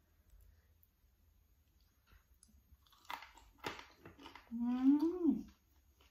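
A person chewing food close to the microphone, with a few short wet clicks and crunches about three seconds in. Near the end comes a hummed "mmm" that rises and falls in pitch over about a second, the loudest sound here.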